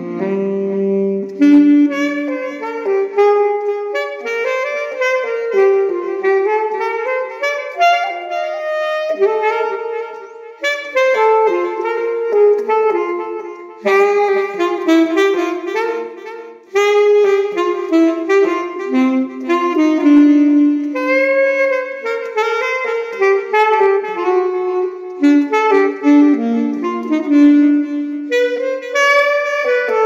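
Saxophone playing a fast bebop melody line: quick runs of notes broken by brief pauses.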